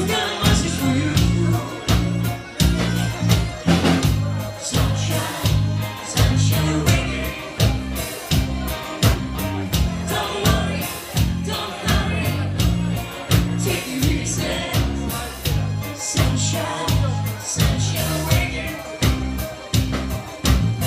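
A song with singing over a steady beat and a bass line.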